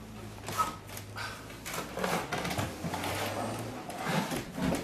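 Irregular knocks and clatter of household objects being handled and moved, over a low steady hum that stops about three quarters of the way through.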